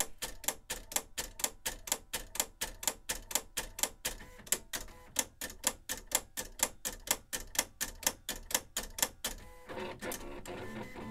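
Silhouette Cameo 3 vinyl cutter running a test, clicking steadily about four times a second. Near the end the clicking gives way to a steadier motor whir.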